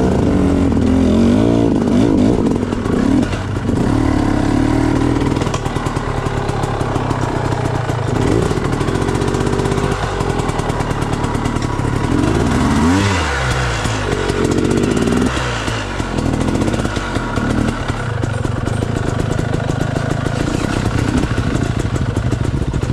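Dirt bike engine running on a trail, revved up and down repeatedly as the throttle is worked, its pitch rising and falling several times, with one sharp rev about halfway through.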